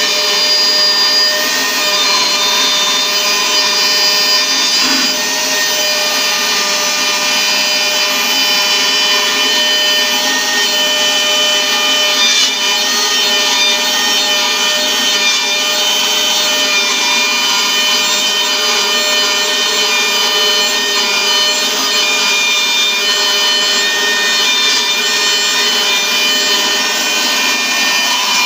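Metabo KFM 15-10 F electric edge milling machine cutting a chamfer into the edge of thick steel plate. Its motor whines steadily under load while the cutter grinds through the metal without a break.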